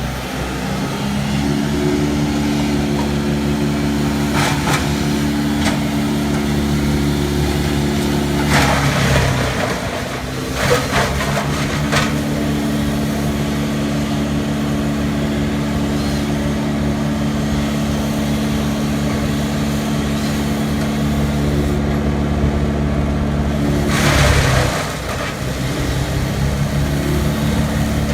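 Engine of a tree-shredding machine running steadily. The engine note drops briefly twice, about 9 and 24 seconds in, each time with a short burst of noise, and there are a few shorter noise bursts in between.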